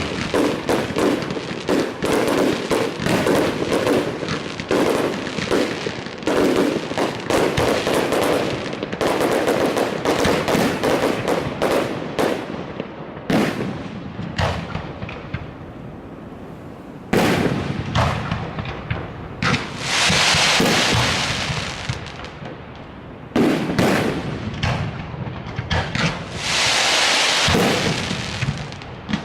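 Fireworks display: a dense run of rapid shell bursts and bangs, thinning out to separate booms in the second half. Two long crackling hisses, each lasting a few seconds, come about two-thirds through and near the end.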